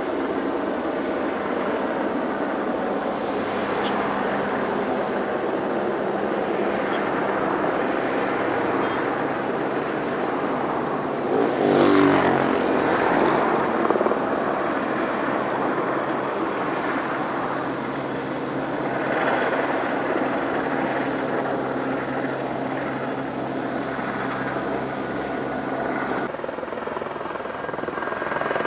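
Helibras AS 350 B2 single-turboshaft helicopter running, a continuous rotor and turbine noise with steady low tones. It grows louder for a couple of seconds about twelve seconds in, and the low tones change about twenty-six seconds in.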